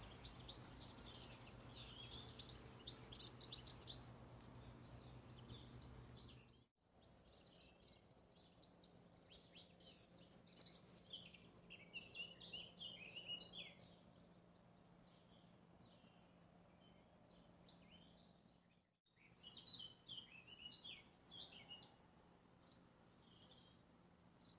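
Faint birdsong: many small birds chirping and twittering over a low steady hum. The sound cuts out briefly twice, about seven and nineteen seconds in.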